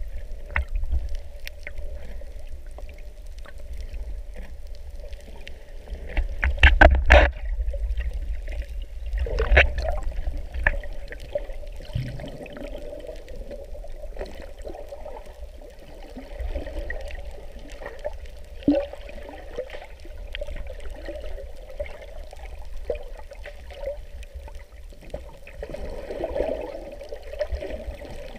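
Underwater sound through an action camera's waterproof housing: water sloshing and gurgling over a low rumble and a steady hum, with scattered clicks. There are louder bubbly bursts about seven and ten seconds in.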